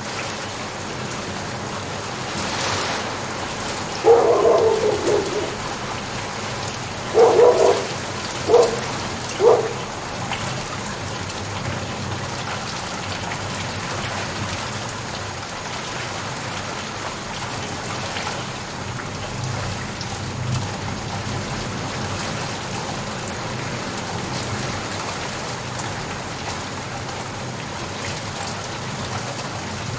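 Steady rain falling, an even hiss. Four short, louder sounds stand out over it between about four and ten seconds in.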